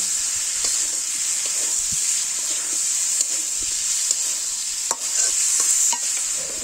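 Raw mango pieces frying in hot oil in a metal karahi, with a steady sizzle. A metal spatula stirs them, scraping across the pan, and knocks sharply against it twice near the end.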